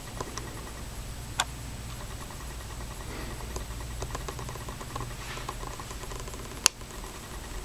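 Steady low hum with faint, regular mechanical ticking, broken by two sharp clicks, one about a second and a half in and a louder one near the end.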